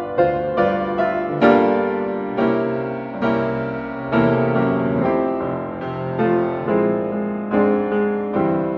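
Piano playing slow, gentle music: chords struck about once or twice a second, each left to ring and fade before the next.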